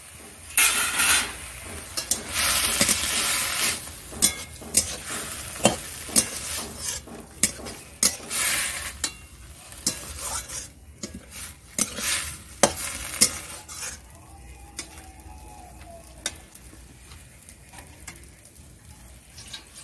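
Metal spatula stirring and scraping chopped leafy greens in a steel kadai, clattering against the pan while the greens sizzle as they fry. The stirring is busiest in the first two-thirds and eases off over the last few seconds.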